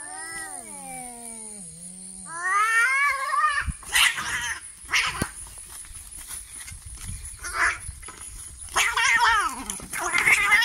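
Two domestic cats in a fight standoff, yowling at each other: a long caterwaul falls in pitch, then a second one rises. Short, harsh bursts follow about four and five seconds in, and near the end comes a louder, wavering screech.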